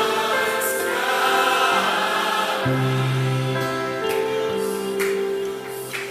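Christian worship song with held sung notes over sustained chords. A deep bass note comes in about two and a half seconds in.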